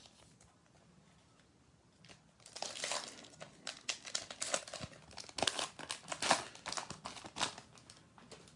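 A trading-card pack wrapper being torn open and crinkled, in a string of irregular crackles that begin about two seconds in.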